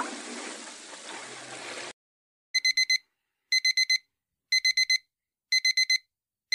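A rushing whoosh of noise that cuts off sharply, then a digital alarm-clock beep: groups of four quick high beeps repeating once a second.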